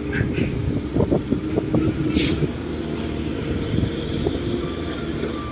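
A truck engine idling with a steady low rumble, with a few scattered knocks and one short hiss about two seconds in.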